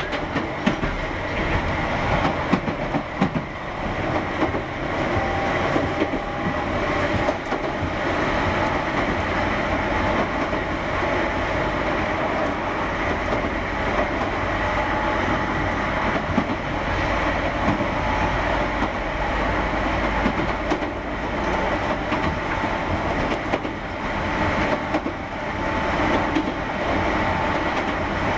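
Keihan 600 series electric train running along the line: a steady rumble of wheels on rail with scattered clicks from the track joints. A faint steady tone rises into the noise around the middle and again toward the end.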